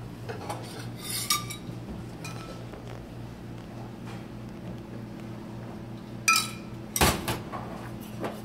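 Metal spoon and small saucepan clinking against each other and the plate while a sauce is spooned out, a few scattered clinks with a louder clatter about six to seven seconds in. A steady low hum runs underneath.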